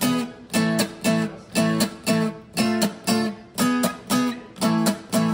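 Steel-string acoustic guitar strummed in a steady rhythm, roughly two strokes a second, holding an E7 chord.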